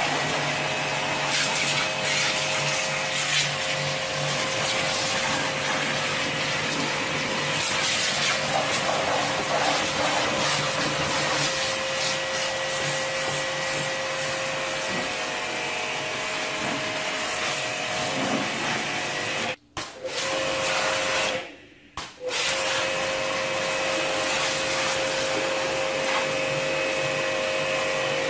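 Hiroma electric pressure washer running, its motor hum with a steady whine under the hiss of the water jet spraying a car's bodywork. The sound drops out briefly twice about two-thirds of the way through.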